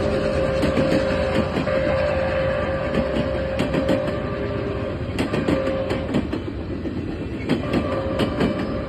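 Passenger railway cars rolling past at speed, with a steady rumble, wheels clicking over rail joints, and a steady ringing tone that drops out briefly about six seconds in.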